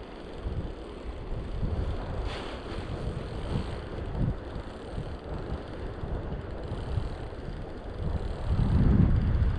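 Wind buffeting the microphone in irregular low rumbling gusts, strongest near the end, over a steady rushing hiss from a mountain stream.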